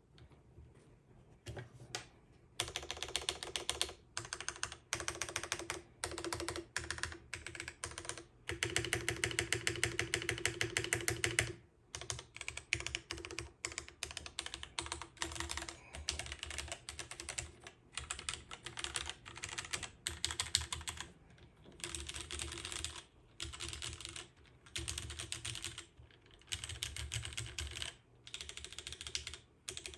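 Fast typing on a mechanical keyboard with lubed and filmed Cherry Vintage Black linear switches, an aluminium plate in a dual mount and DCS-profile keycaps: rapid runs of sharp, crisp keystrokes in bursts with short pauses, the longest flurry a few seconds long around the middle.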